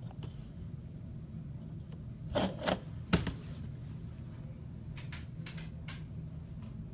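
A few sharp clicks and taps, the loudest a cluster of three near the middle and lighter ones later, over a steady low hum.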